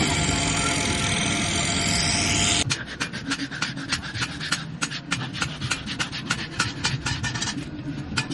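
Background music that cuts off abruptly about two and a half seconds in, followed by a hand file rasping back and forth over the steel in a steady rhythm of about three strokes a second.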